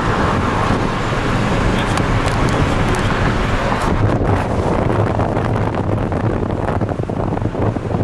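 Steady road and tyre noise of a Pontiac Montana minivan at highway speed, heard inside the cabin. In the second half wind buffets the microphone as it is held out toward the front wheel. No bearing drone stands out: the new front wheel bearing runs quiet, and the van seems good.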